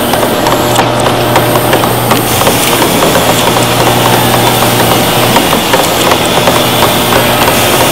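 Woodworking power tools running: a steady motor hum with many small, irregular clicks and knocks.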